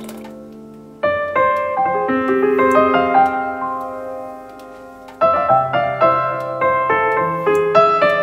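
Background piano music. Held notes fade out, a new phrase starts about a second in, and another starts about five seconds in, with quicker notes toward the end.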